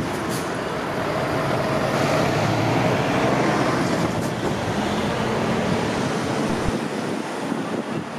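Road traffic: motor vehicles passing close by on a city street. The rushing of engines and tyres swells about two to three seconds in and then eases off.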